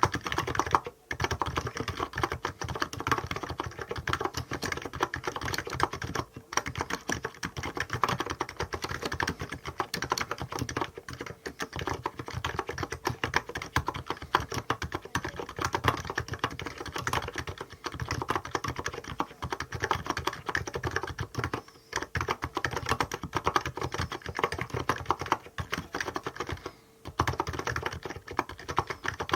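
Fast, continuous typing on a Hansung GK868B electrostatic capacitive keyboard with 50 g keys and tall SA-profile keycaps: a dense run of keystrokes broken by a few short pauses.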